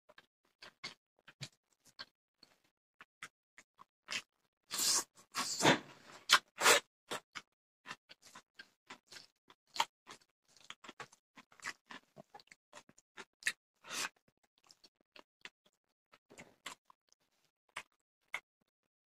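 Eating by hand: chewing and lip smacking, with fingers mixing rice and fish curry on a plate, as a run of short wet clicks. A louder, longer stretch comes about five to seven seconds in.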